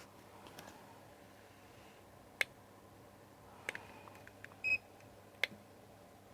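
A single short, high electronic beep from a handheld measuring instrument, about three-quarters of the way through. A few sharp clicks come before and after it.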